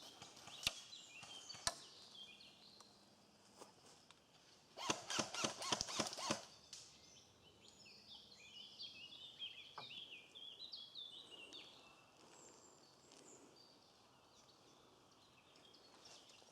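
Songbirds chirping and singing, broken by sharp cracks: two single ones in the first two seconds, a quick run of about seven about five seconds in, and one more near the ten-second mark.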